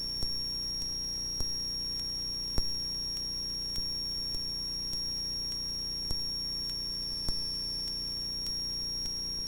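Cockpit audio of a Cessna 172RG climbing out: a steady high-pitched electrical whine over an even low drone, with a few faint scattered clicks.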